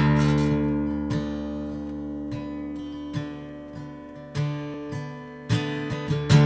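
Acoustic guitar playing a solo intro. A chord struck at the start rings out and slowly fades, with further strums and picked notes about once a second.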